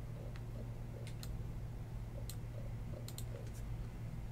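Scattered sharp clicks of a computer keyboard and mouse, some in quick pairs, as an entry is typed into a spreadsheet, over a steady low electrical hum.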